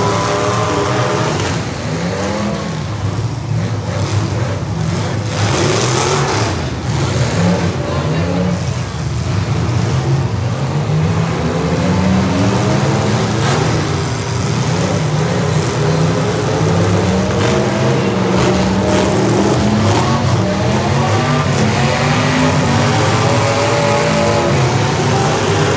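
Several demolition derby cars' engines running and revving hard together, their pitches rising and falling, with scattered sharp knocks of cars colliding.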